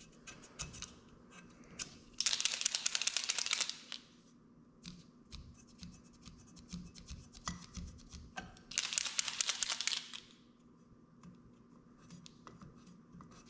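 A worn-out marker scrubbed hard back and forth to mark clutch parts for reassembly: two bursts of fast, scratchy strokes, each about a second and a half long and some five seconds apart. Small clicks and knocks of parts being handled come between the bursts.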